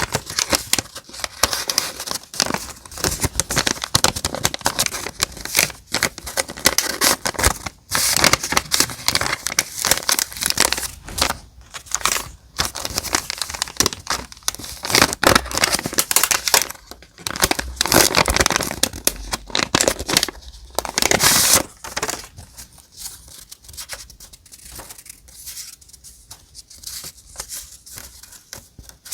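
Paper being handled close to the microphone: dense rustling and crinkling, with tearing, that eases to fainter, scattered crackles about three-quarters of the way in.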